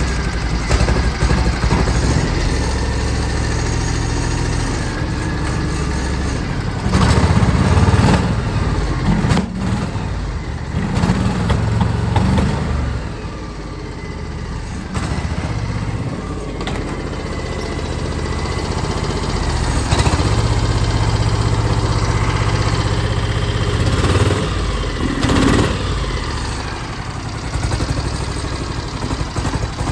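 John Deere X720 lawn tractor's two-cylinder fuel-injected engine running, its level rising and falling, with the right-side cylinder misfiring because of a fouled, over-rich plug.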